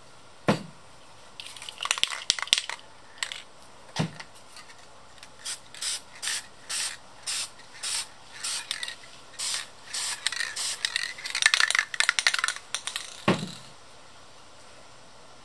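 Aerosol spray paint can hissing in short bursts, about two a second, as paint is sprayed over a stencil, with two denser crackly stretches of rapid spraying. A few dull knocks come in between, about 4 seconds apart.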